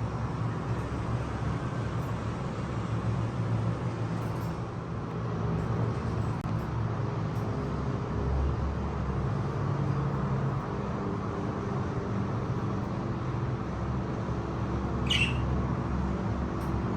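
A steady low background rumble, with one brief high pet budgerigar chirp sweeping downward near the end.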